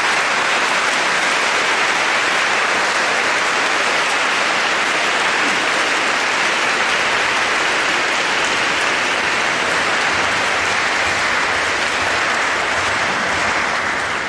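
Large crowd applauding steadily in a big church hall, a dense, continuous clapping that holds at the same level throughout.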